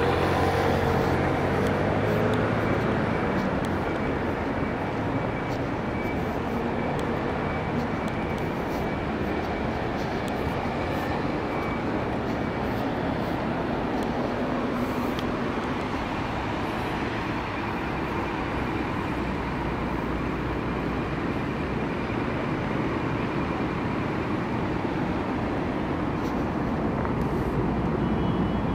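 Steady outdoor city noise, a dense rumble and hiss, with a low pitched hum in the first couple of seconds.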